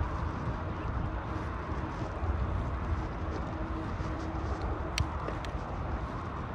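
Steady low rumble of wind on the microphone and tyre noise from a bicycle being ridden, with a couple of sharp clicks about five seconds in.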